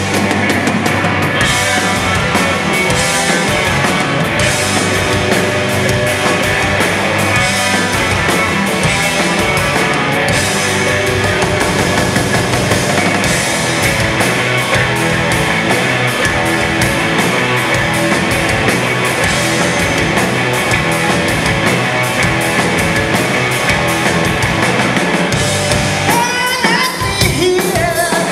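Live rock band playing an instrumental passage: distorted electric guitars over drums with steady cymbal strokes. A man's voice comes in singing near the end.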